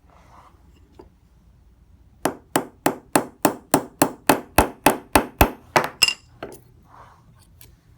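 Light, even hammer taps driving a friction ball bearing down into an automatic watch movement: about fourteen sharp metallic taps at roughly three a second, the last one ringing, then a couple of faint clicks.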